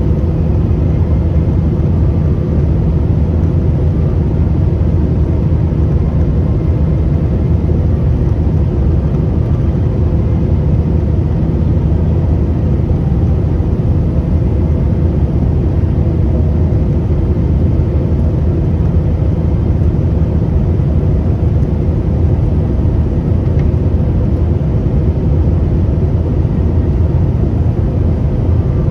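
Steady cabin drone of an airliner in flight: a constant low engine and airflow rumble with faint steady tones above it.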